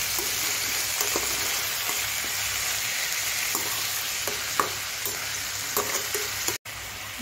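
Fish pieces, onion, tomato and green chillies sizzling in a little oil in a kadai, with a metal spatula clicking and scraping against the pan a few times as the mix is gently turned. Near the end the sound cuts out for a moment and comes back quieter.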